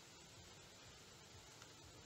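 Near silence: a faint steady hiss with a low rumble underneath.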